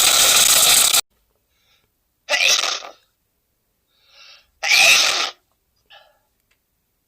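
A man sneezing again and again: a long loud sneeze that ends about a second in, then two more short sneezes a little over two seconds apart, with faint sounds between them.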